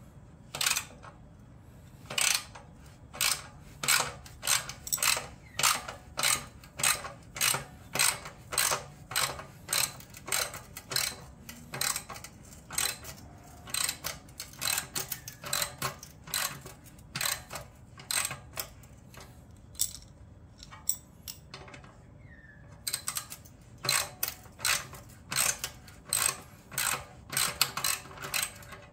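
Socket ratchet wrench turning out an exhaust clamp bolt on a motorcycle, its pawl clicking in a steady run of strokes at about two a second. The clicking stops for about two seconds a little past the middle, then resumes.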